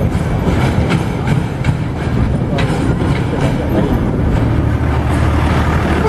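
Diesel-hauled passenger train rolling across a rail bridge: a steady low rumble with irregular sharp clicks of the wheels passing over rail joints.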